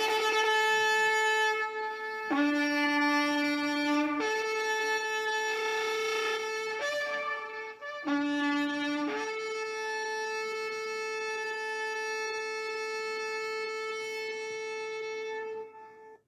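A bugle call: long, steady notes alternating between a low and a higher pitch, ending on one high note held for about seven seconds.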